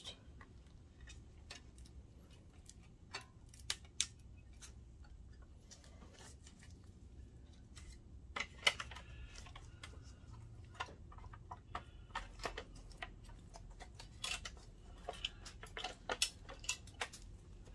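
Irregular small clicks and taps of plastic and metal parts being handled during reassembly of a projector: a power connector plugged in and the main circuit board set back into the plastic case. The clicks come thicker about eight seconds in and again near the end.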